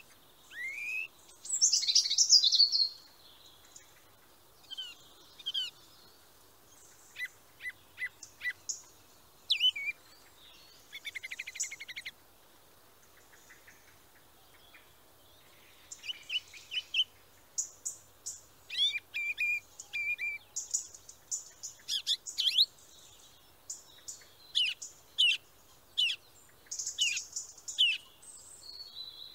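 Songbirds singing and calling: many short high chirps and whistled notes in irregular bouts, with a rapid trill near the middle and a louder burst of song about two seconds in.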